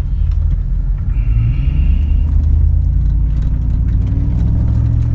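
Vehicle exhaust heard from inside the cab while driving slowly: a steady low rumble that rises a little about a second in. The exhaust is straight-through with no resonators and has a second X-pipe added to tone down its popping.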